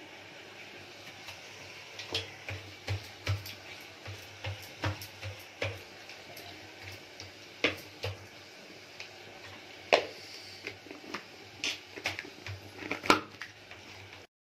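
Kitchen utensils clinking and knocking irregularly as they are handled: a spoon in a plastic container, a steel pressure-cooker lid and a plate. The sharpest knocks come about ten seconds in and again near the end.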